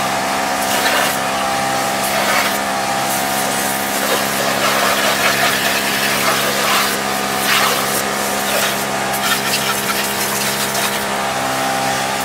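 Sisun portable pressure washer's electric pump running steadily with a constant hum, while water sprays and a small hand brush scrubs a rubber floor mat in uneven strokes.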